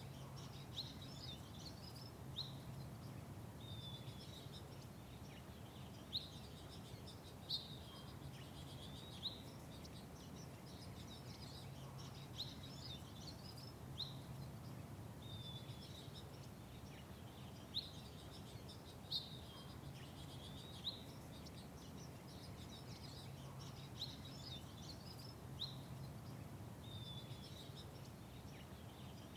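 Small birds chirping in short, repeated notes, some sliding downward, over a steady low background hum.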